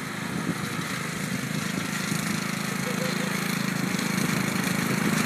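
Riding lawn mower's engine running steadily, gradually getting a little louder.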